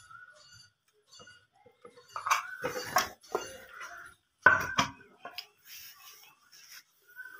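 Clinks and knocks of a small plastic bottle being handled and tapped over a plastic bucket as pigment powder is shaken into wood polish. A cluster of sharp knocks comes about two to three seconds in, and the loudest knock about four and a half seconds in.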